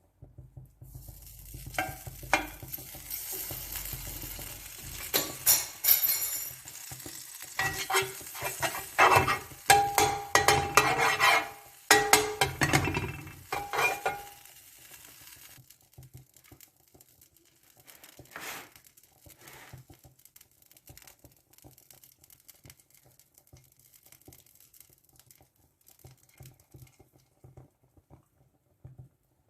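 Pancake cooking: a utensil stirring and clattering against metal cookware with a frying sizzle underneath for about fifteen seconds, then only faint scattered clicks.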